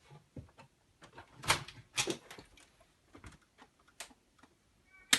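Hanabi pachislot token slot machine being handled: a run of irregular mechanical clicks and clacks, the loudest about one and a half, two and four seconds in, then a short electronic tone and a sharp clack at the end.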